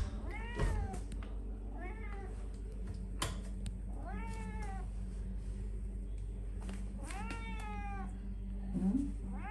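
A long-haired cat meowing repeatedly, about five meows a second or more apart, each rising then falling in pitch; the longest comes about seven seconds in. A couple of light knocks fall between them.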